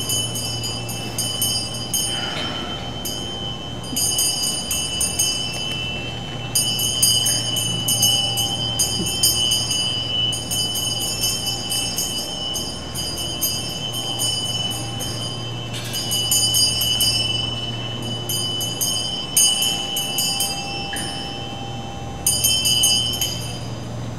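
Tibetan ritual hand bell (drilbu) rung continuously in long runs with a few brief pauses, giving a steady high ringing.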